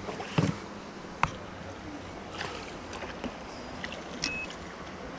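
A hooked perch splashing at the water's surface as it is played on rod and reel, with sharp clicks and knocks from the tackle; the loudest is a single sharp click about a second in.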